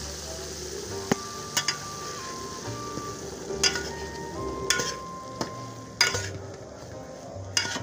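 Hot ghee sizzling as semolina is stirred into it with a slotted metal spatula in an aluminium pot. The spatula knocks and scrapes against the pot about eight times. This is the start of roasting the semolina in ghee, and the sizzle thins out after about six seconds as the semolina soaks up the fat.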